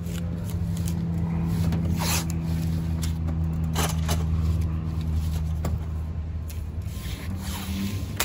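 Blue painter's tape being pulled off the roll in several quick rasping rips and pressed down to hold the glass, over a steady low hum.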